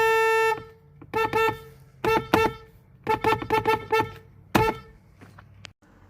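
A car horn sounding one long honk, then short honks in quick groups, the fastest run of about six toots in the middle, and a last single toot.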